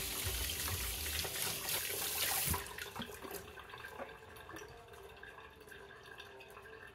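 Kitchen tap running hot water onto a plastic disc in a sink as it is rinsed and rubbed by hand, washing off leftover glue from dyeing. The flow cuts off about two and a half seconds in, leaving only faint drips and small splashes.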